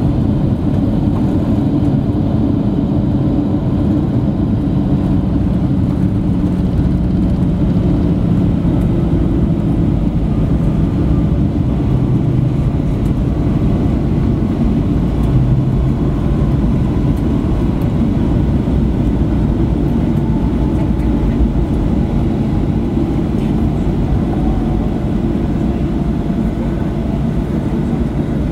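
Cabin noise of a Boeing 737-800 rolling on the ground after landing: a steady low rumble from its CFM56-7B engines and wheels. A faint engine whine slides slowly down in pitch through the second half.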